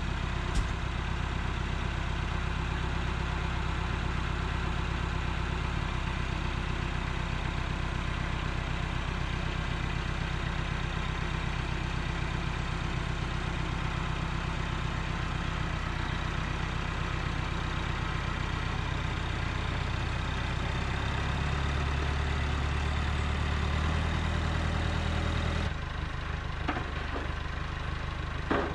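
Tractor's diesel engine idling steadily. The revs rise a little about twenty seconds in, then the engine is quieter near the end.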